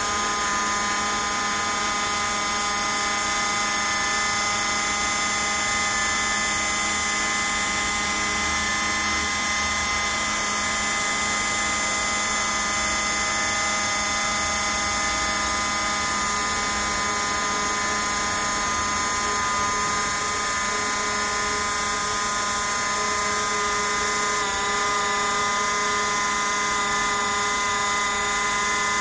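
Small CNC router spindle running with a steady high whine made of several tones while its bit carves a white foam block. The mix of tones shifts slightly about 24 seconds in.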